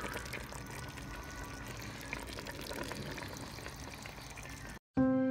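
A steady hiss with faint scattered crackles, typical of sauce simmering in a pot of chicken feet adobo. It cuts off suddenly near the end, and soft music with held notes begins.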